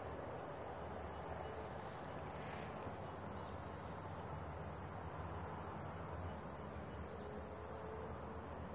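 Insects chirring steadily in one unbroken high-pitched drone, with a low rumble underneath.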